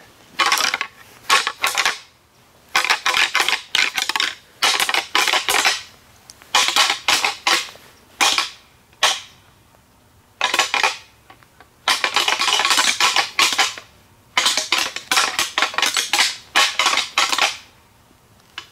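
Hard objects clattering and rattling in repeated bursts of half a second to two seconds, with short pauses between them.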